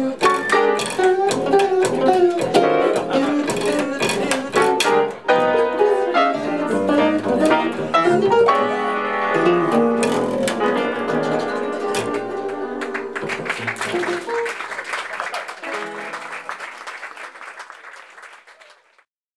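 Live jazz: an archtop guitar and an upright double bass playing. Near the end the playing thins out and the sound fades to silence.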